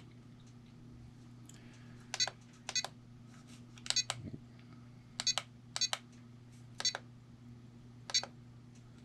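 RadioLink six-channel pistol-grip RC transmitter beeping as its buttons are pressed to set up the model: about seven short, sharp beeps at uneven intervals, starting about two seconds in. A steady low hum runs underneath.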